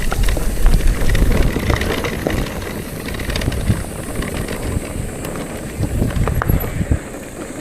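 Bicycle rolling over a rough forest road: a rumbling, rattling ride noise with scattered clicks from the tyres and bike, and wind buffeting the microphone. It grows quieter toward the end.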